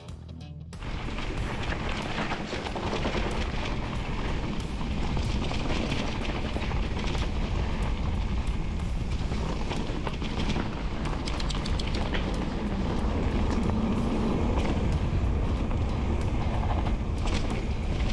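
Rockrider XC 500 S mountain bike rolling fast down a loose gravel track: tyres crunching over stones, the bike rattling, and low wind rumble on the camera. It starts suddenly about a second in.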